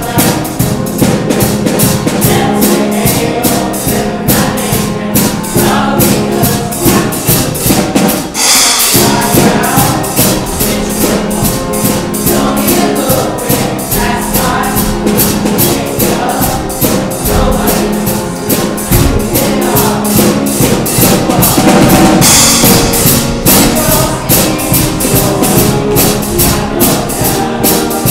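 Show choir singing a competition number over accompaniment with a steady drum beat.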